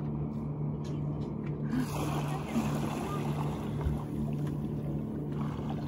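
Humpback whale surfacing right beside the boat: a rush of churning water starts about two seconds in and carries on, over the steady low hum of the boat's idling motor.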